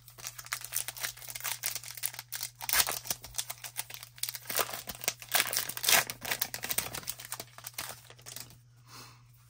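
Wrapper of an Upper Deck MVP hockey card pack being torn open and crinkled by hand: a dense, irregular crackling rustle that thins out about a second before the end.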